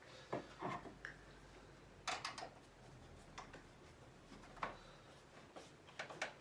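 Scattered light clicks and knocks, about half a dozen over a few seconds, from hands handling computer hardware and cables.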